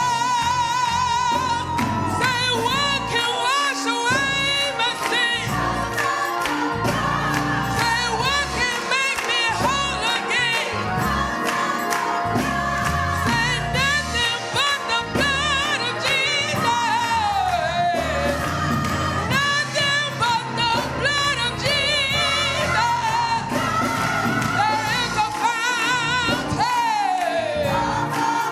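Gospel music: voices singing with vibrato and sliding notes over an instrumental accompaniment with a steady beat.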